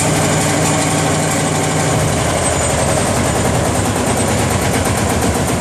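Old tractor diesel engine, started with a cartridge, running steadily in a shed. Its note shifts slightly about two seconds in.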